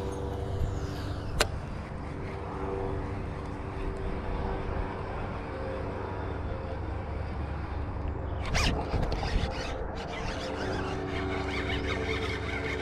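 Steady drone of distant freeway traffic with a few held tones in it. A sharp click comes about a second and a half in, and a short rushing noise about eight and a half seconds in.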